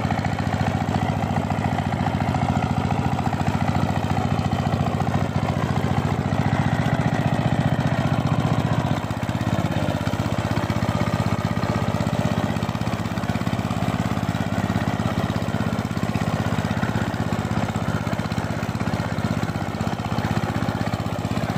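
Two-wheel power tiller's single-cylinder diesel engine running steadily under load as it is driven through a wet paddy field. Its deeper note eases off a little about nine seconds in.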